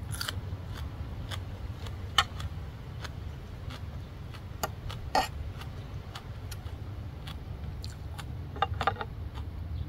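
Close-up mouth sounds of someone chewing crunchy green papaya salad, with scattered sharp crunches and clicks, the loudest about two and five seconds in, and a metal fork clinking and scraping on the plate as she scoops. A steady low hum runs underneath.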